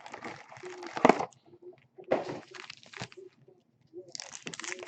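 Foil trading-card pack wrappers crinkling and cards being handled, in three rustles each about a second long.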